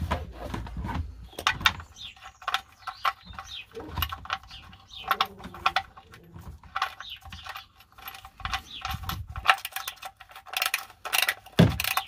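Repeated metallic clinks and clicks of hand tools as the VW Crafter's drain plug is refitted and tightened.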